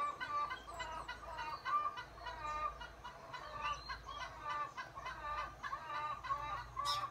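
Hens clucking over and over in a busy chorus of short calls, several a second, the noise hens make when they are trying to lay eggs.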